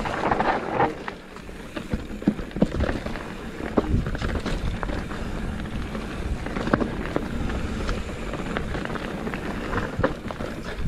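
Mountain bike riding down a rough trail: a steady rumble of tyres and wind on the microphone, with frequent sharp knocks and rattles from the bike bouncing over rocks and roots.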